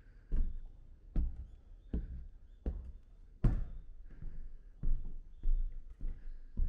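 Footsteps on the bare wooden floorboards of a shrine's kagura hall: about nine even walking steps, each a dull thud on the boards.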